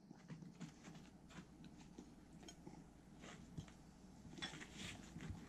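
Near silence: quiet room tone with a few faint, scattered clicks and taps, a little more frequent in the second half.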